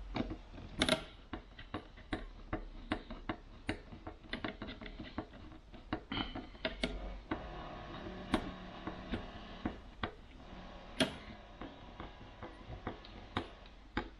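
Hand screwdriver driving screws into the plastic housing of a campervan electric hook-up inlet on a van's side panel: a run of irregular clicks and ticks, with louder knocks about a second in and near eleven seconds.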